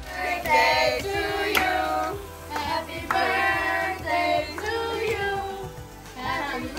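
A Spanish-language children's birthday song: child and female voices singing over a music track.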